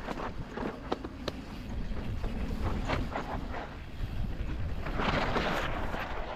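Mountain bike descending a loose, dusty trail: wind rumbling on the microphone, tyres crunching over dirt and the bike rattling with sharp knocks over bumps, and a longer scraping hiss about five seconds in.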